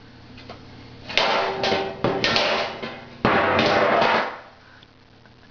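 Metal baking pans clanging and rattling on a hard kitchen floor as a toddler handles and steps on them. There is a string of sharp, ringing metallic clangs from about a second in, then a longer clatter that stops suddenly about a second before the end.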